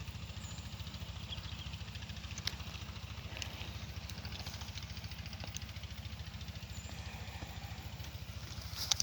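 A small engine idling steadily with a low, rapid pulse, and a few faint clicks.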